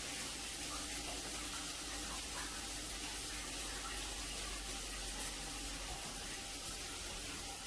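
A shower running: a steady hiss of falling water in a small tiled room.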